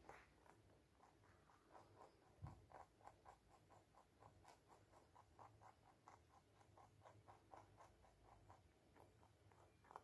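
Rabbit chewing a piece of carrot: faint, rapid crunching ticks, about five a second, with a single dull thump about two and a half seconds in.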